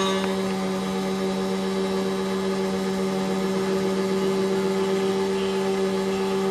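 SEC-E9 key cutting machine's spindle motor running steadily while its cutter mills a key blank: an even, unchanging hum.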